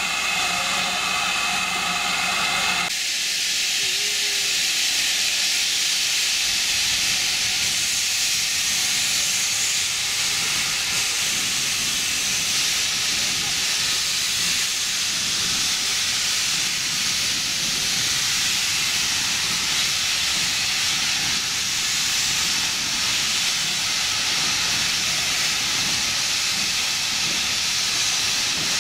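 Steam from the steam locomotive Norton Manor, a GWR Manor-class 4-6-0, hissing steadily and loudly as it billows around the carriages. For about the first three seconds a steadier humming tone sits under the hiss, then the sound changes to the even rush of escaping steam.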